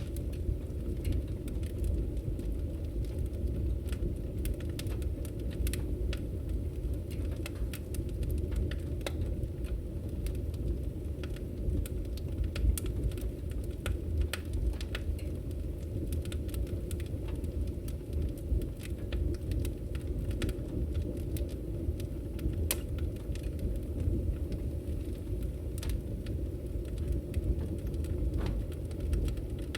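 Open wood fire burning steadily: a low rumble of the flames with frequent irregular crackles and pops from the burning logs.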